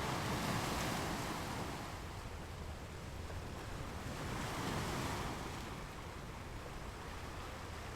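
Ocean waves washing onto a beach: two swells of surf, the first just after the start and the second about four seconds in, over a steady low rumble.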